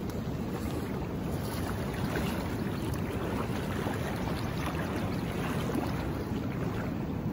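Steady rush of river water and the distant falls, an even wash of noise with no breaks.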